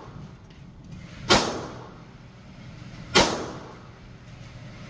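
Two single shots from a 7.5-inch-barrel AR-15 pistol, about two seconds apart, each a sharp crack followed by a short echoing tail.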